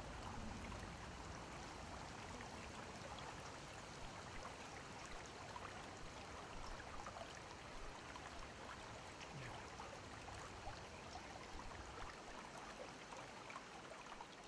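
Faint running water of a creek: an even rush with faint scattered ticks and splashes.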